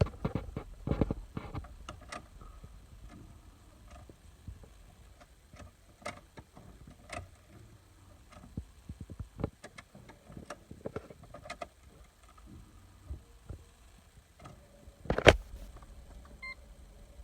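Scattered clicks and knocks of a car key and ignition being handled in a Holden VZ Commodore that won't start, with a louder knock about 15 seconds in, then a faint steady hum and a short dashboard beep. No engine cranking or running is heard.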